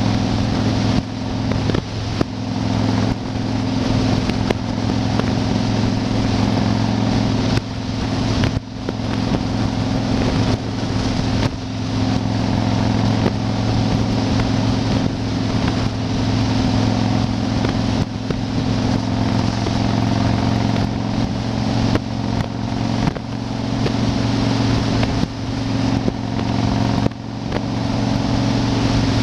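Yamaha XV1600 Wild Star's V-twin engine running at a steady cruising speed, a low even drone with no revving, under wind noise rushing over the microphone.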